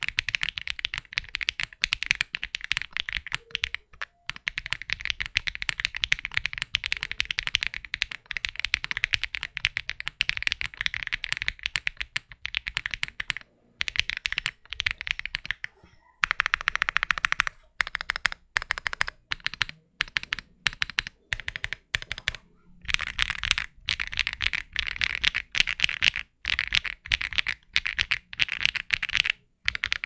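Continuous typing on a mechanical keyboard with lubed Akko Cream Blue V3 tactile switches, an FR4 plate, GMK keycaps and no case foam: quick runs of keystrokes with a few brief pauses.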